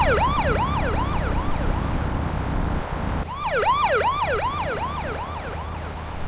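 Police car siren in a fast yelp pattern, about three sweeps a second, over a low engine rumble. It fades, starts again loudly about three seconds in, then fades again.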